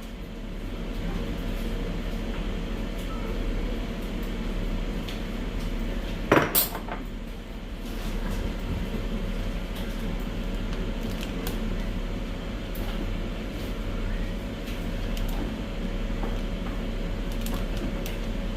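Kitchen dishes and cutlery clinking and being handled over a steady background hum, with one louder clatter about six seconds in.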